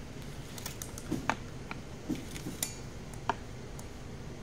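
Hard plastic and metal parts of a Glock pistol and a Recover carbine conversion kit clicking and tapping together in the hands as they are fitted: about half a dozen separate sharp clicks.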